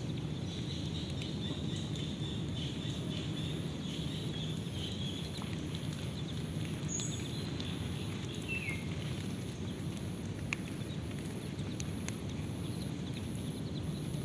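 Outdoor park ambience: a steady low rumble with faint high bird-like chirps in the first few seconds, a short falling call near the middle, and a faint high pulse repeating about once a second.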